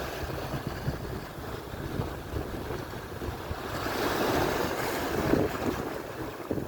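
Atlantic surf washing onto the shore, swelling louder as a wave breaks and rushes in about four seconds in, with wind rumbling on the microphone underneath.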